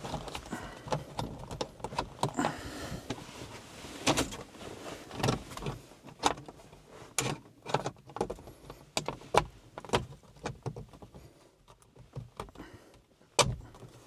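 Hard plastic dash cam housing and mirror-mount trim cover knocking, clicking and scraping as they are pushed and worked together by hand, fitting stiffly; a single sharp click near the end is the loudest.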